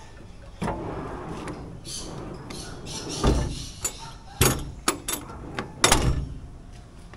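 XTM steel slide-out drawer in a ute canopy being slid and latched: sliding runs broken by several sharp clunks and latch clicks, the loudest about three, four and a half, and six seconds in.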